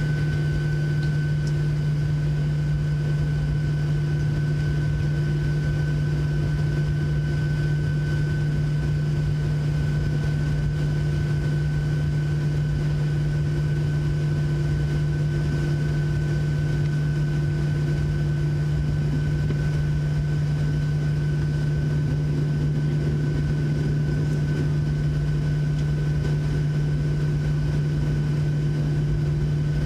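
Steady cabin drone of a Boeing 737-700 on the ground before takeoff, its CFM56-7B engines at idle, heard from inside the cabin: a strong low hum with a thin, steady high whine above it.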